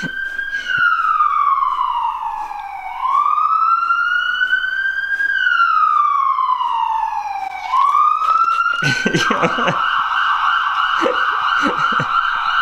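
Recorded ambulance siren playing from a laptop speaker: a slow wail rising and falling in pitch over about five seconds per cycle, switching about nine seconds in to a fast warble at a steady pitch.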